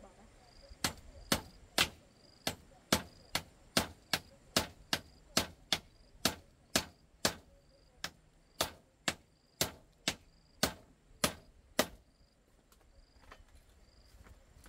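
Sharp blows of a hand tool striking repeatedly, about two a second, stopping about twelve seconds in.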